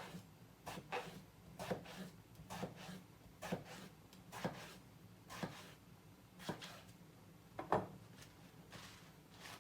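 Soft short knocks roughly once a second, over a faint low steady hum.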